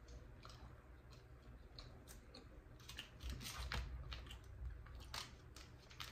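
Faint chewing of barbecued pork spare ribs close to the microphone, with scattered soft wet clicks.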